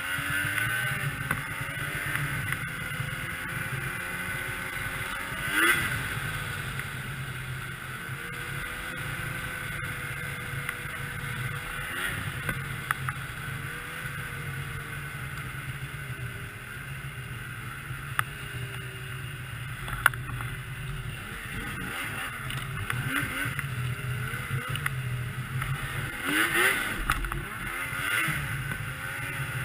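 2002 Yamaha SX Viper 700 snowmobile's two-stroke triple engine running under way, its pitch rising and falling with the throttle. It surges louder about six seconds in and again near the end.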